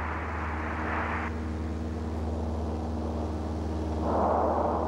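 Steady drone of an aircraft engine heard from inside the cabin, with a rushing hiss over it that cuts off about a second in and swells again near the end.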